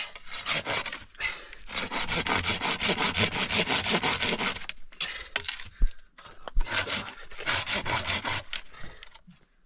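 Hand saw cutting through a wooden branch in quick, rhythmic back-and-forth strokes. The sawing pauses about five seconds in, broken by two sharp knocks, then starts again.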